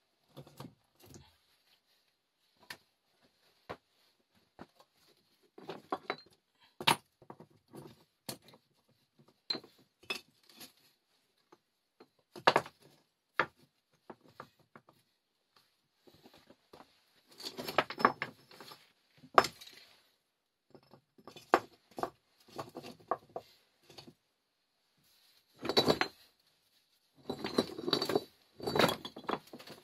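Irregular sharp clicks, clinks and knocks of hard objects being handled and struck together, with a few longer bursts of rattling and scraping about halfway through and near the end.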